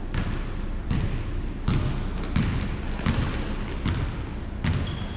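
Basketball being dribbled on a hardwood gym floor, about seven bounces at an even pace of a little more than one a second. Short high sneaker squeaks come in a couple of times, near the end most strongly.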